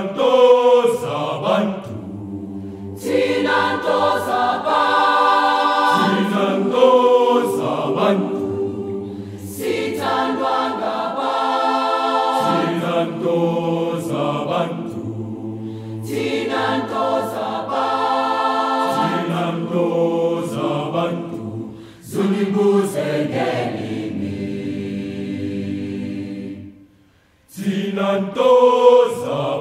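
Mixed school choir singing a traditional isiXhosa song in full harmony, with sustained low bass notes under the upper voices. It goes in phrases, with brief breaks about two-thirds of the way through and again near the end.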